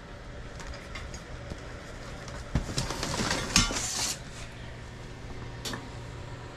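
Metal clanks and rattles as a metal grill grate is handled and set down onto a metal fire pit: a cluster of knocks about two and a half to four seconds in, then one sharp clank near the end.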